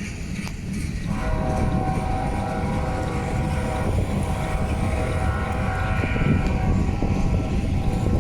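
GE diesel-electric locomotive in dynamic braking: the traction motors work as generators and the brake grids' cooling blowers run with a deep, steady rumble. About a second in, a steady chord of several higher tones comes in over it and fades near the end.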